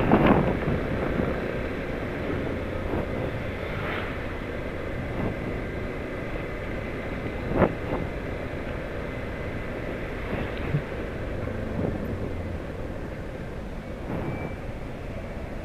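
Motorcycle engine running at low, steady speed, with tyre noise on a wet road. There is a short sharp sound about seven and a half seconds in.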